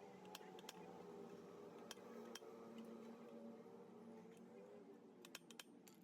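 Faint, scattered clicks and light taps of small hard objects being handled, over a quiet low background. A few clicks come at the start and a quick cluster comes about five seconds in.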